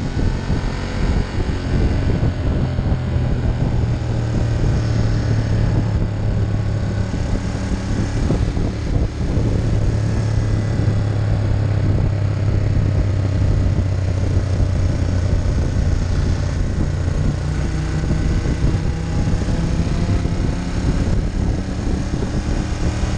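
Ducati Monster 1200's L-twin engine running at a steady cruise, its pitch drifting a little with the throttle, with wind rushing over the microphone.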